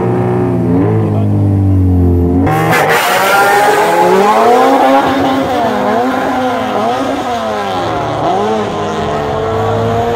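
Street-race cars revving at the line, then launching hard about two and a half seconds in and accelerating away. The engine pitch climbs and drops with each upshift, and one engine pulls in a long steady rise near the end.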